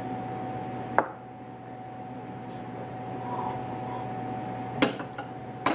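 A few sharp knocks or clicks on a hard surface, one about a second in and two close together near the end, over a steady high electrical hum in the room.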